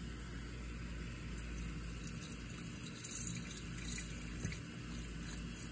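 Two-cycle gas pouring steadily from a plastic gas can's spout into a Lawn-Boy mower's plastic fuel tank.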